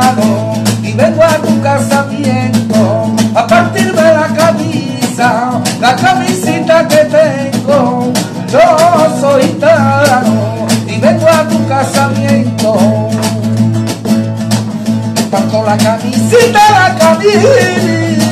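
A man singing flamenco, accompanying himself on a strummed nylon-string Spanish guitar. Dense strums run under a wavering, ornamented vocal line.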